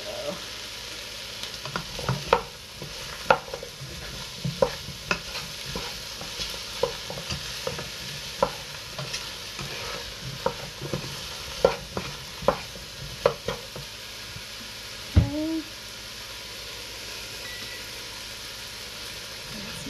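Diced potatoes, cauliflower and leeks sizzling in a pot on the stove, a steady hiss, with irregular knocks and scrapes from a wooden spoon stirring against the pot. A brief rising tone sounds about fifteen seconds in.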